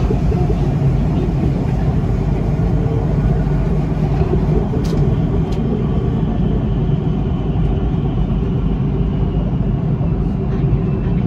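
Cabin noise of a Siemens Inspiro metro train running on an elevated track: a steady low rumble of wheels on rail and running gear while the train slows down in a start-stop manner.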